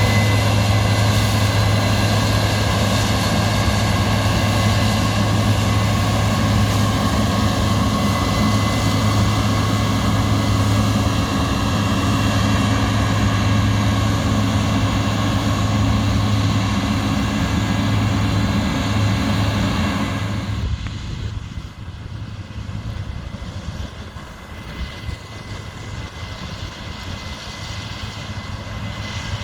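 Heavy diesel harvest machinery running steadily with a strong low drone. About twenty seconds in, the sound drops in level and loses its high end.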